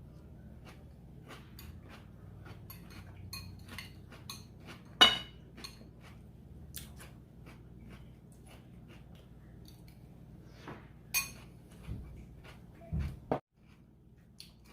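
Cutlery clinking and tapping against dishes in a scatter of short clicks, with two louder clinks about five and eleven seconds in. A low background hum stops abruptly near the end.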